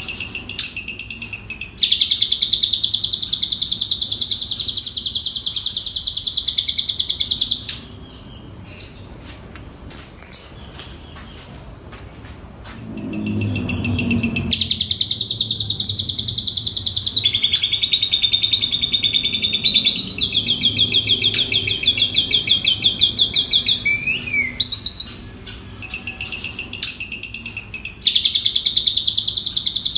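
Asian pied starling (jalak suren) singing its mimicked song: long runs of fast, high trilling notes. The song breaks off for several seconds about a quarter of the way in, and a brief low rumble comes just before it resumes.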